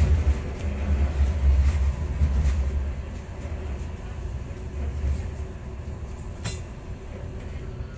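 Inside a running tram: a steady low rumble from the tram's running gear, heavier in the first few seconds and then easing off, with a few short sharp clicks or rattles, the clearest near the end.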